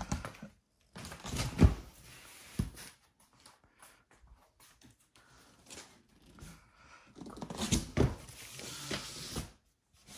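A few sharp thumps and knocks in a small room, the loudest about a second and a half in and another about eight seconds in, with rustling between them.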